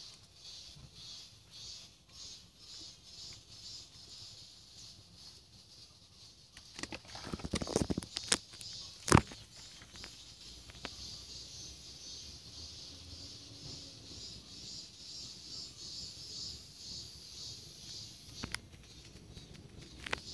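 A steady faint high pulsing hiss runs throughout. About seven seconds in comes a burst of rustling and clattering, ending in one sharp click that is the loudest sound, with a lone tick near the end.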